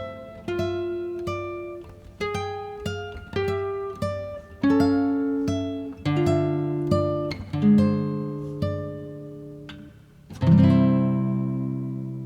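Background music: a plucked acoustic guitar picking a melody note by note, closing on a louder chord about ten seconds in that is left to ring out and fade.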